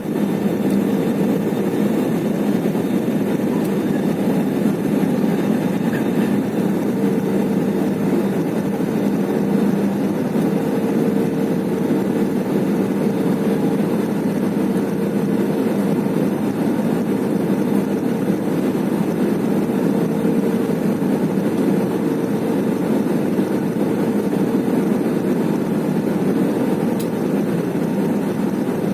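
Steady airliner cabin noise from an Airbus A320 coming in to land: jet engines and airflow heard from inside the cabin, with two faint steady hums under the rush.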